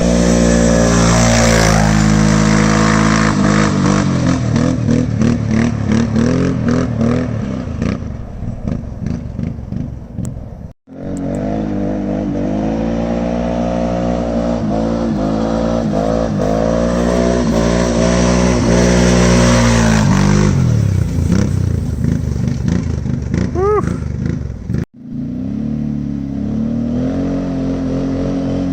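A 1000 cc quad (ATV) engine running hard, its pitch rising and falling as it revs and lets off, with rapid crackling stretches as the revs drop. The sound cuts off abruptly twice, and it runs steadier and lower near the end.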